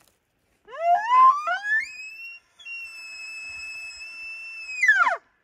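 Elk bugle call blown through a bugle tube, a hunter's imitation of a bull elk's bugle. It rises in steps from a low note to a high whistle, holds it for about two seconds, then drops away sharply near the end. It is sent out to draw bull elk to bugle back.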